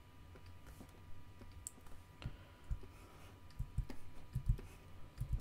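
Scattered computer mouse clicks with soft desk thumps, coming closer together in the second half, over a faint steady electrical hum.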